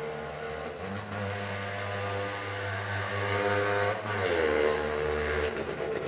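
A passing vehicle's engine droning, growing louder, then dropping in pitch about four seconds in as it goes by.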